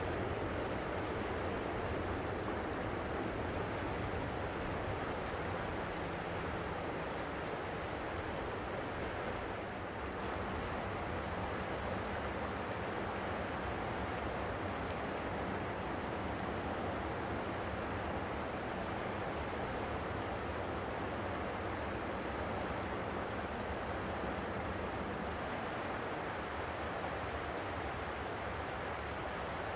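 Boeing 737-700's CFM56-7B jet engines running at idle as the airliner taxis, a steady rushing hum with no spool-up.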